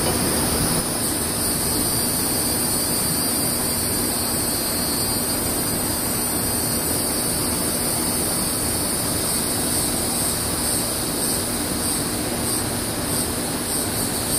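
Steady, even rushing noise with a low hum and a high hiss, unchanging throughout.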